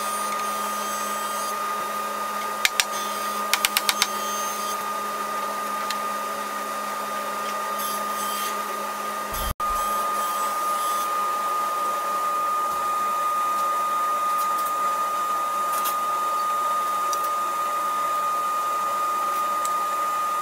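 Steady whirring of a shop machine running, with a constant high whine over it. A quick run of sharp knocks comes a few seconds in, and the noise drops out for an instant about halfway through before carrying on.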